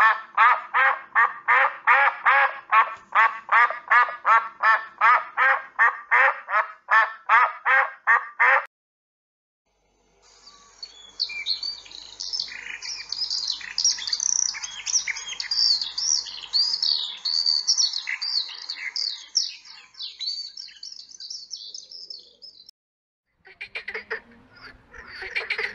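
A duck quacking in a long, fast run of about three quacks a second, stopping after about nine seconds. After a short silence, a small songbird sings and twitters in quick, high chirps for about twelve seconds, and near the end frogs begin croaking.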